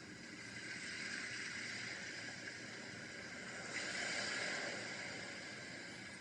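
Watercolor brush rubbing across cold-press paper, a soft brushing hiss as wet paint is blended out, getting louder about four seconds in and then easing off.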